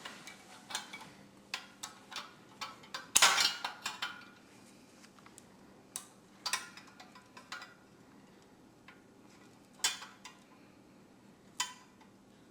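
Irregular metal clicks and clinks as a nut on a metal fireplace tool stand is tightened with a makeshift tool in place of a socket wrench, with a louder clatter about three seconds in.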